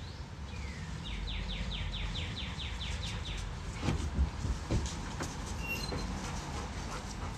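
A small bird singing a quick run of about ten rising notes, followed later by a couple of short high chirps. Under it is a steady low rumble, with a few dull thumps about four seconds in.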